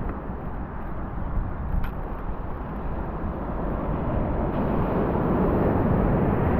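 Steady rushing outdoor beach noise, swelling louder over the last two seconds.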